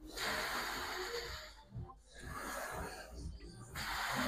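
A man breathing hard through wide-stance squat reps under a loaded Smith-machine barbell: three long, noisy breaths, each more than a second, with short pauses between them, from the effort of the lift.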